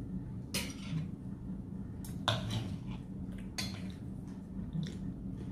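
Knife and fork clinking and scraping on ceramic dinner plates at a meal, four separate clinks with the sharpest a little past two seconds in. A steady low hum runs underneath.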